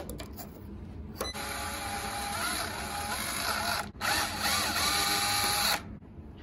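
Power drill-driver backing out the terminal screws on an electric water heater element to free the wires. Its motor runs twice, for about two and a half seconds and then about two seconds, with a short pause between.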